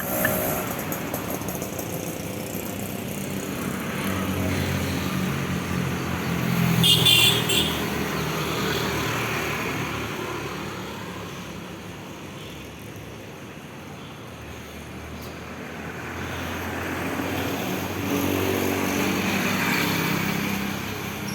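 Road traffic passing: engines swell as vehicles go by about four to eight seconds in and again near the end. A brief high-pitched burst about seven seconds in is the loudest moment.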